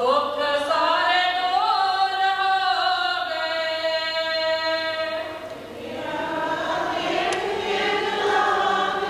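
Devotional singing in long held notes that slide slowly between pitches. The phrase fades about five seconds in and a new one begins a second later.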